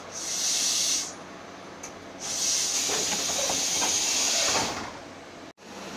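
Compressed air venting from a stopped JR Shikoku 7200 series electric train's pneumatic system: two sharp hisses, a short one, then after a second's pause a longer one of about two and a half seconds. The sound cuts off suddenly near the end.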